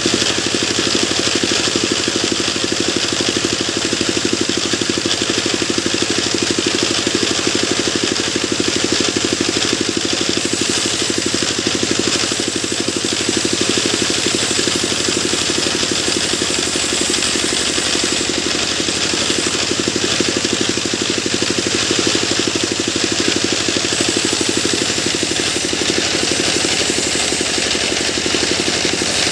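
Sawmill machine running steadily: the engine driving the saw keeps an even, fast pulse with no breaks or changes in speed.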